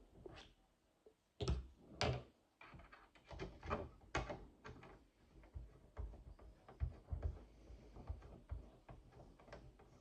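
Irregular knocks and clunks of objects being handled and set down, the two loudest about one and a half and two seconds in.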